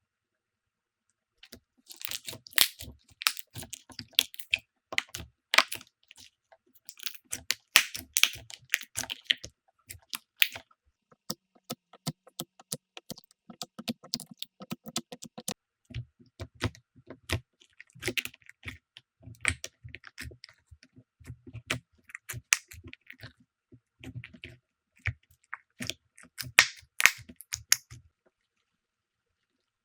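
Slime being squeezed, pressed and poked by hand: quick runs of sticky clicks, crackles and small pops. It starts about a second and a half in and stops a couple of seconds before the end.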